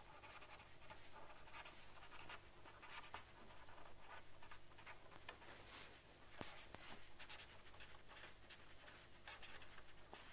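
Faint scratching of a marker pen writing on paper, in quick runs of short strokes, over a low steady electrical hum.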